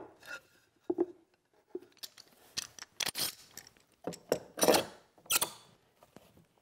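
Wooden clamping cauls knocking on a glued panel and bar clamps being set and tightened over them: a run of sharp clicks and knocks, with a longer rattling, scraping stretch a little past four seconds in.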